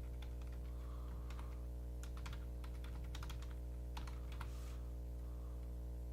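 Typing on a Logitech K360 compact membrane keyboard: irregular key clicks that come in quick clusters and thin out near the end. The keys are audible rather than quiet. A steady low electrical hum runs underneath.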